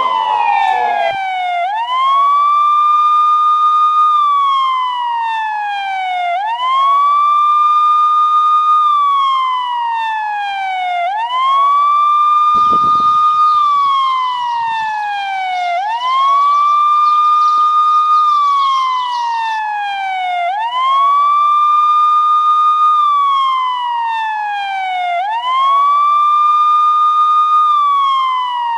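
Wailing emergency siren of the police type, laid over the film as a sound effect: each cycle rises quickly, holds its high pitch for about two seconds, then slides steadily down, repeating about every five seconds. A brief low thump comes about halfway through.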